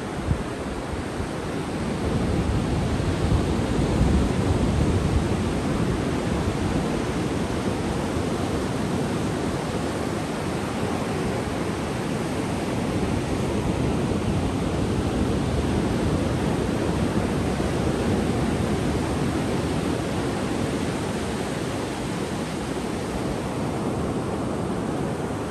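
Ocean surf breaking and washing up a sandy beach: a steady rushing of waves that swells a little about two to five seconds in.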